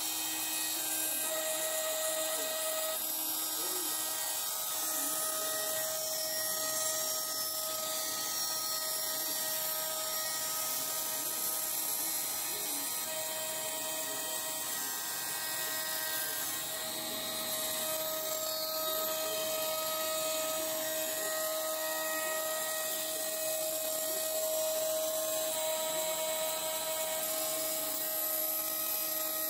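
Shapeoko CNC router spindle running steadily, a small end mill cutting a dark hardwood guitar bridge blank: a steady high whine of several held tones over a cutting hiss, some tones coming and going as the cut moves.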